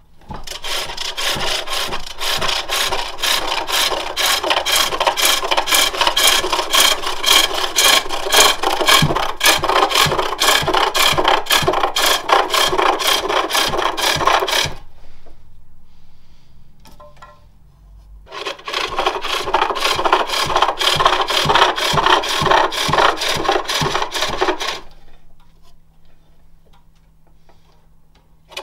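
Turning tool cutting a spinning jacaranda blank on a spring pole lathe: a rasping, scraping cut that pulses in a steady rhythm as the work spins back and forth with each treadle stroke. A long bout of cutting stops at about fifteen seconds, and a shorter bout follows a few seconds later.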